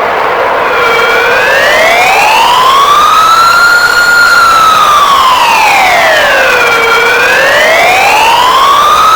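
Emergency alert alarm: a loud wailing siren whose pitch slides slowly up and down, one full rise and fall about every six seconds.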